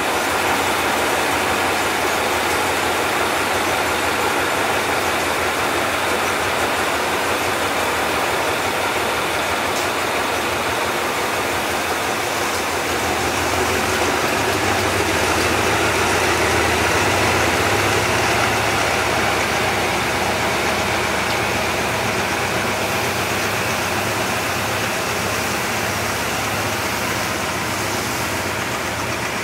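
Diesel locomotive engine idling with a steady low throb, swelling a little in the middle.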